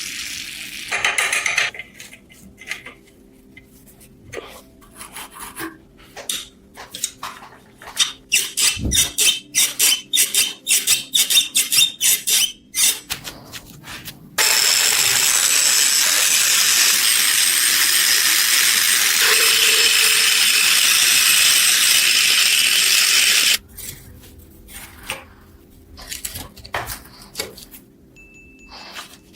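Small metal parts being handled at a workbench: scattered clinks and taps, then a quick run of rattling strokes, then a steady hiss for about nine seconds that stops suddenly, followed by more light clinks.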